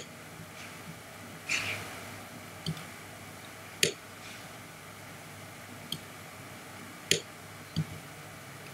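Scattered sharp clicks from a computer mouse and keyboard, about six single clicks a second or more apart, with a softer rustle about a second and a half in, over a faint steady low hum.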